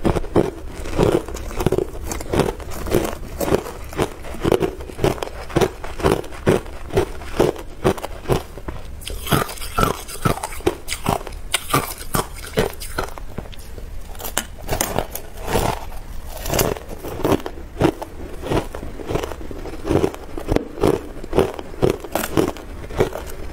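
Hard clear ice being bitten and chewed close to the microphone: steady, sharp crunches about two to three a second. Near the middle, a metal spoon scrapes and clinks through ice in a stainless steel bowl before the next mouthful.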